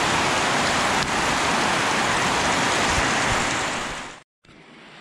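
Heavy rain pouring down, a loud steady hiss that fades out about four seconds in, giving way to a much quieter background.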